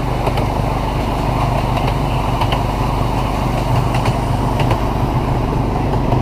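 Miniature railway train running along its track: a steady mechanical drone with a few faint clicks.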